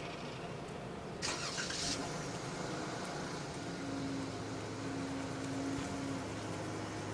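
Car engine running at idle with a steady hum, and a short loud hiss about a second in.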